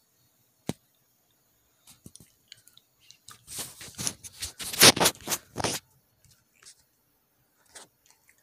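Close rustling and crackling with scattered sharp clicks, loudest for about two and a half seconds in the middle.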